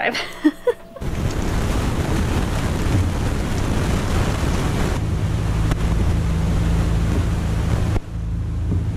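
Wind buffeting the microphone, a loud steady rumble and hiss, with a low steady hum joining about halfway through.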